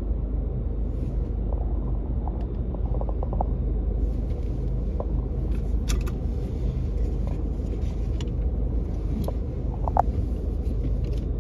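Steady low rumble of vehicle traffic and ventilation echoing in a concrete parking garage, with a few faint clicks and a sharper knock near the end.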